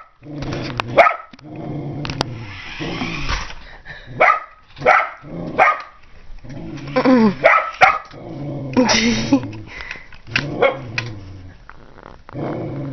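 A dog barking about a dozen times in short, sharp barks, with low growling between them, agitated at a remote-control toy car chasing it.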